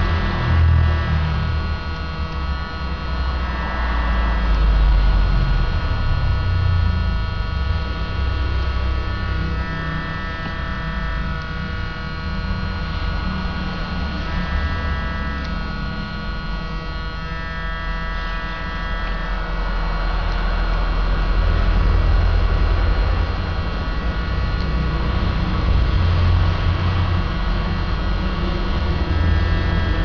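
Steady electric hum of a small handheld air tool's fan motor running continuously, heavy in the low mains-hum range. Faint higher tones come and go a few times.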